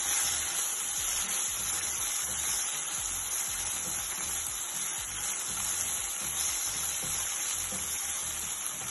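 Chopped ginger, garlic, green chili and spring onion sizzling steadily in hot oil with ketchup, soy sauce and rice vinegar in a frying pan, stirred with a spatula.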